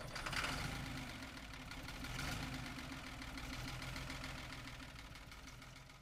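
An engine running with a fast, even pulse, swelling in at the start and fading out at the end.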